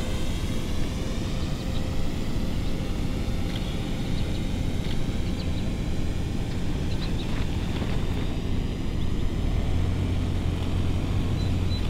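Ford Bronco Sport SUV's engine running at low speed with a steady low drone as it crawls over rough dirt, with a few light clicks in the middle.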